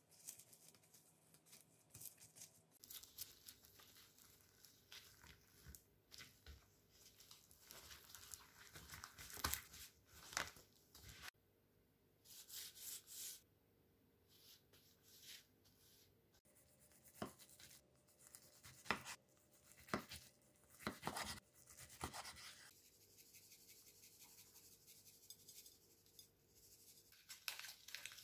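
Quiet food-preparation handling sounds while making gimbap: gloved hands pressing rice onto dried laver sheets and rolling them, heard as soft rustles and light taps in short, separate bursts.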